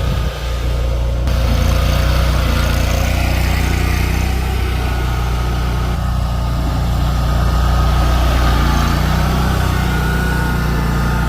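A Multi Force compact snow-clearing machine's engine runs steadily under load, with a faint whine over its low hum, as it works through packed, crusted snow. The engine gets a little louder about a second in.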